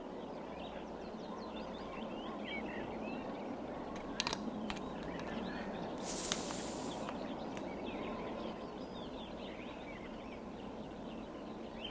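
Small birds chirping over a steady outdoor background hiss, with a few sharp clicks about four seconds in and a short burst of hiss about six seconds in.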